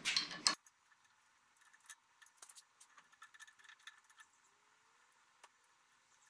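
Faint, scattered metallic clicks and light rattles of hand tools working on the truck's underside, with one sharper click near the end.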